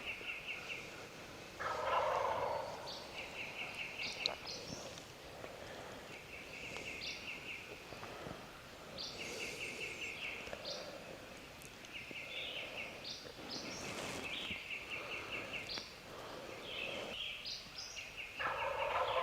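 Wild turkeys gobbling about 100 yards off, with two louder gobbles about two seconds in and near the end. Between them come repeated quick high-pitched trills of other birds.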